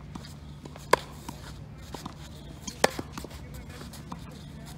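Tennis balls struck by racket strings in a rally: two sharp hits about two seconds apart, with fainter taps of the ball and feet on the clay court between them.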